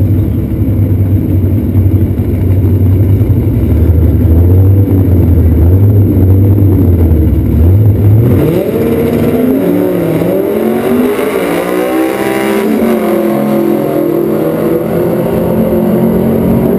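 Drag-racing engines, the Datsun 521 pickup with its new head, header and carburettors among them, running at the start line, then about eight seconds in revving hard and pulling away down the strip. The pitch climbs and dips at each gear change, then settles into a steadier drone as the cars get further off.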